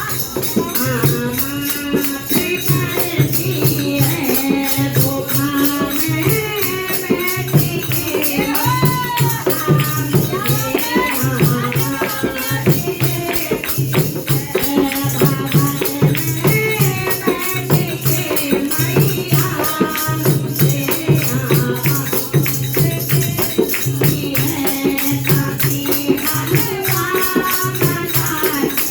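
Hindi devotional bhajan: a voice singing a melody over steady, fast hand percussion and a regularly pulsing bass note.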